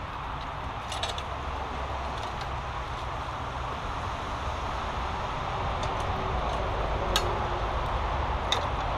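Shallow brook water running and trickling over stones and debris at a culvert blockage, with a low steady rumble beneath. There are a few sharp clicks as a long-handled tool knocks against stones in the stream bed.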